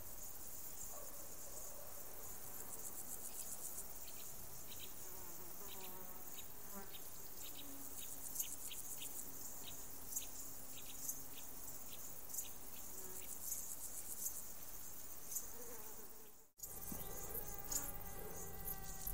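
Meadow insects chirping: a dense, high-pitched rapid chirring throughout, with a run of short ticking chirps about three a second in the middle. Near the end the sound cuts out for a moment, and a steady buzzing hum comes in.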